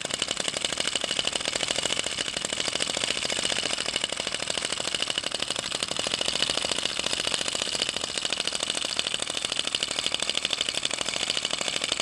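Small Star Power vacuum (flame-licker) model engine running steadily, its piston and flame valve ticking in a rapid, even clatter.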